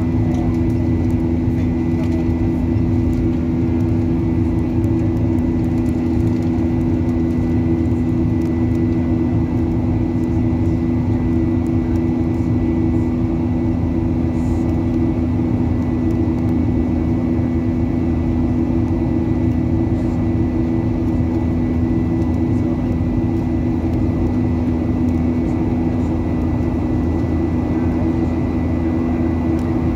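Jet airliner cabin noise during the climb after take-off: a steady low engine drone with a deep hum and a faint high whine over the rush of air.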